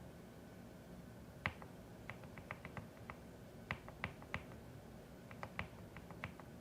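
Keystrokes on a CIDOO ABM081 mechanical keyboard: faint, irregular clicks in short quick runs, starting about a second and a half in.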